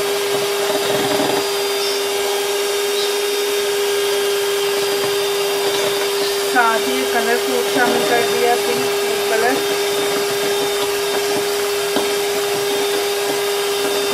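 Hand-held electric mixer running steadily, its beaters whisking cake batter in a bowl, with a constant motor hum. A few short squeaky sounds come about halfway through.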